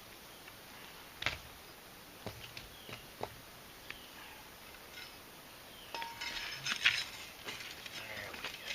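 Metal shovel digging ash out of a fire pit: scattered sharp clinks against rock, then a busier clatter of scraping and clinking about six seconds in.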